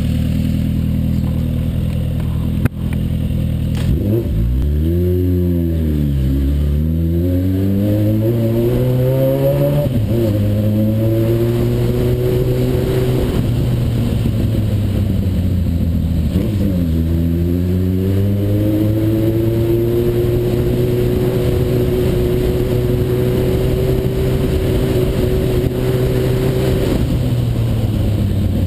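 Suzuki Bandit 1200's inline-four engine under way. Its note is steady for long stretches and twice falls and climbs again, with a sudden drop in pitch about ten seconds in. There is a sharp click a little under three seconds in.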